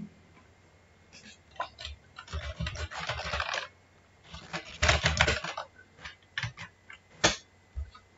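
Typing on a computer keyboard: two quick runs of keystrokes, then a few single key clicks, one of them sharper and louder near the end.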